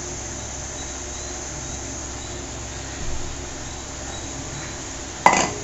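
Steady low hiss and faint hum of a kitchen stovetop while spice powder is tipped from a steel bowl into a metal kadai, with a soft scrape about three seconds in and one sharp metal clink near the end as the bowl meets the pan.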